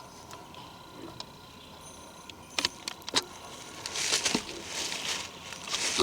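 Rustling and crackling of dry forest debris, with two sharp snaps about two and a half and three seconds in, followed by hissy rustling bursts near the end.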